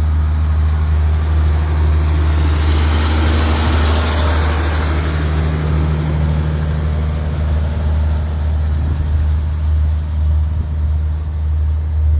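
A steady low engine hum, like an idling vehicle engine, with a swell of rushing noise about three to five seconds in.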